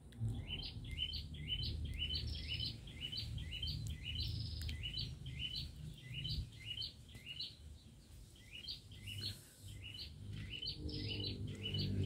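A small bird chirping over and over in short rising chirps, about two to three a second, breaking off for a second or so about two-thirds of the way through and then starting again, over a low background rumble.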